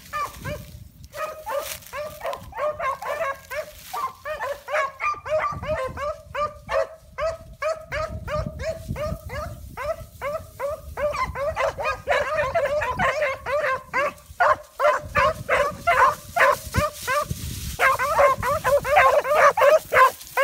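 Beagle hound baying on a rabbit's trail: a fast, near-continuous run of short yelping barks, several a second, growing louder over the second half.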